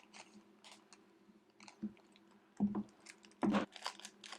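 Scattered small clicks and light taps of tools and small parts being handled during an iPad screen and home-button repair, with two louder knocks about two and a half and three and a half seconds in, over a faint steady hum.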